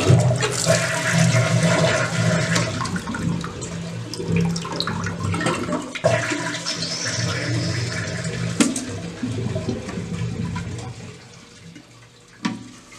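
Toilet flushing with the tank lid off: water rushes out through the lifted rubber flapper valve and dies down after about eleven seconds. A sharp knock comes around the middle and another near the end. The flush tests a flapper that was only misaligned, not worn out.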